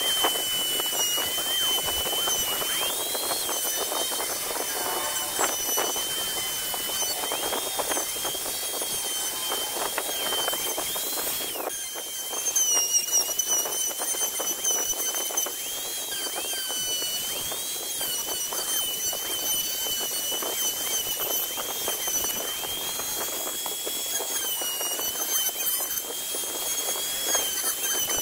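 Compact electric trim router running with a steady high whine, the pitch sagging briefly each time the bit loads up, over the scratchy rasp of the bit cutting recesses into a wooden block.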